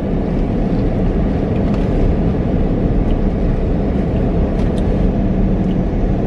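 Steady rumble of road and engine noise inside a moving car's cabin.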